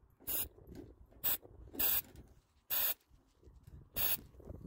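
Aerosol can of Fluid Film rust preventative, sprayed without its straw in five short hissing bursts about a second apart.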